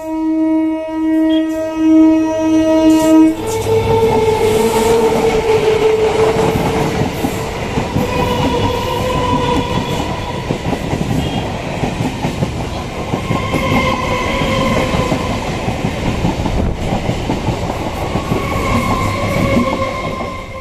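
EMU electric local train horn sounding one long pulsing blast that stops about three seconds in. The train then runs past close by, its wheels clattering over the rail joints in a loud, steady rolling rumble with a few faint whining tones.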